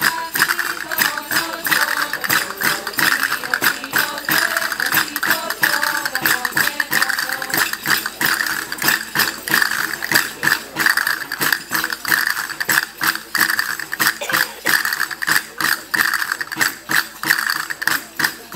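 Folk dance music with a steady beat of tambourines and sharp percussive clicks, about three strokes a second. A sung melody runs over the beat in roughly the first half.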